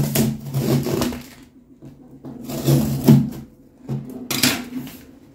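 Scissors scraping and jabbing at the packing tape and cardboard of a large parcel box, in several short scratchy bursts, the sharpest one near the end.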